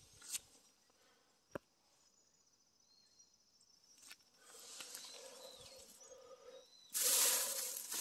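Dry pine-needle and leaf litter rustling on the forest floor: a sharp click about a second and a half in, faint rustling a few seconds later, then louder crunching and rustling of footsteps through the litter from about seven seconds in.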